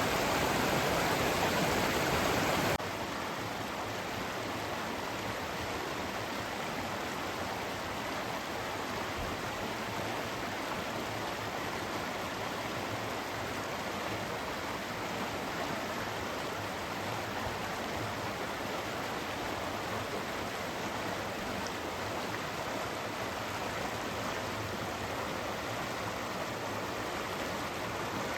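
Great Langdale Beck's water rushing and splashing in a steady, even wash. It drops suddenly to a lower level about three seconds in, then runs on steadily.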